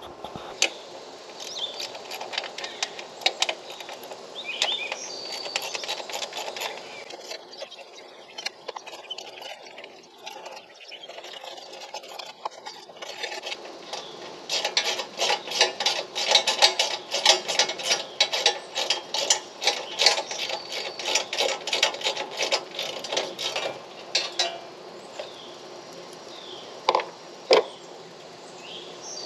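Hand ratchet clicking in quick runs while the seat's mounting bolts are undone, with scattered knocks and rattles of metal parts. The clicking is thickest in a long stretch about halfway in.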